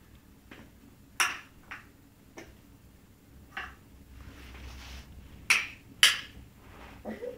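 A run of sharp taps and knocks as a baby bangs a spoon and plastic bowl on a plastic high-chair tray, the loudest about a second in and two close together near six seconds.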